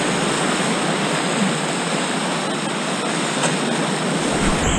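Steady rushing hiss of broken whitewater foaming around a surfboard as it rides a small wave, heard close to the water.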